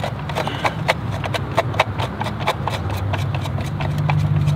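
Chrome lug nut covers being twisted off a truck wheel by hand, making a quick, irregular run of sharp clicks and clinks over a steady low hum.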